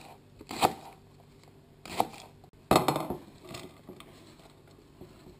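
Chef's knife slicing through leek onto a plastic cutting board in a few separate sharp strokes, then a louder clatter nearly three seconds in as the board is tipped over a non-stick frying pan and the sliced leek is scraped in.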